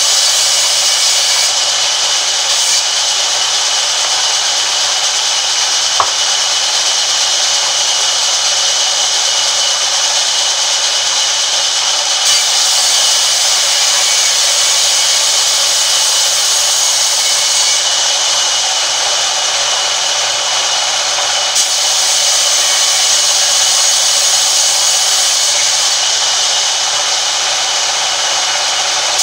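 Large sawmill band saw running and ripping a wooden plank lengthwise: a steady, loud, unbroken hiss of the blade through the wood, with one sharp click about six seconds in.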